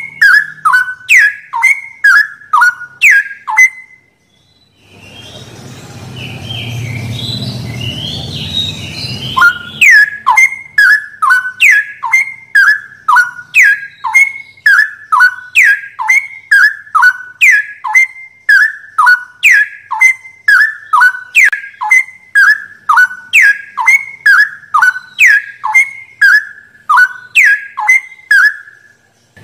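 Straw-headed bulbul song: a loud, fast run of short falling whistled notes, about two a second, repeated evenly. Just before four seconds in, the notes break off into a few seconds of low background noise with scattered higher notes, then the run of notes resumes.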